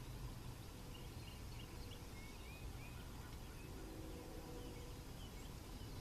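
Small birds chirping on and off over a low steady rumble. About four seconds in, a distant CSX locomotive air horn sounds a faint, brief chord of several notes.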